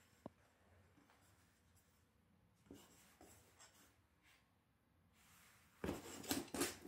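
Two cats play-fighting on a wooden floor: faint scratching and rubbing of paws and fur on the boards, with a louder flurry of scuffling near the end as one cat scrambles up and moves off.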